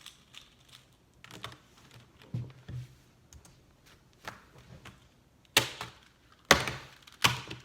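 Scattered plastic clicks and taps of Rubik's Cubes being turned and handled during a blindfolded solve, with a few louder knocks in the last two seconds.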